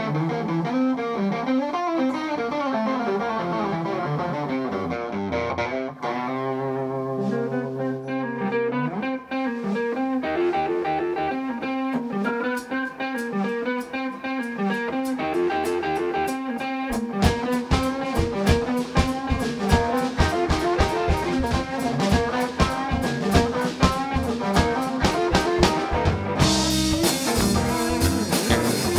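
Live rock band playing an instrumental passage: electric guitar lines over bass. The drum kit comes in with a steady beat a little past halfway, and cymbals wash in near the end.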